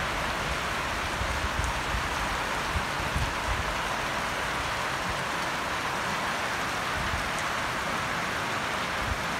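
Steady rain falling on a paved yard, walls and garden plants, an even hiss.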